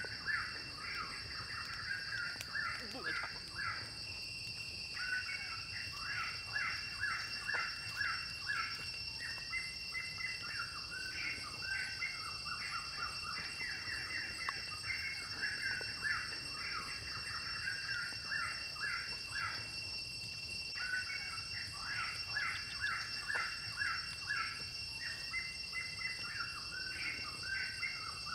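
Rapid, continuous bird chirping over a steady high-pitched insect drone. The chirping pauses briefly about four seconds in and again about twenty seconds in.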